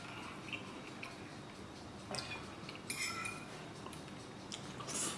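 Metal cutlery clinking against a ceramic plate while eating, a few short clinks, the sharpest and loudest ringing about three seconds in and another near the end.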